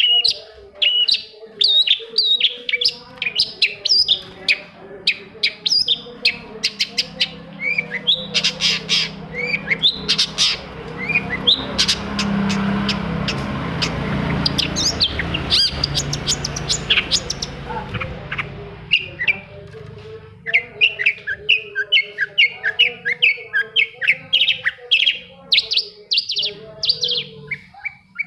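Long-tailed shrike (cendet) singing a fast, varied run of chirps and scratchy notes. About a third of the way in a steady rushing noise rises under the song for several seconds, then fades as the song picks up again.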